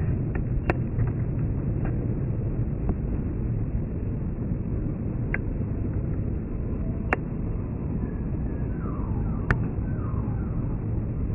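Steady low rumble of a jet aircraft, with a few sharp clicks. Several faint short falling whistles come in near the end.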